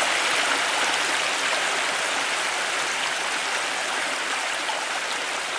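Steady rushing sound of flowing water, slowly getting quieter.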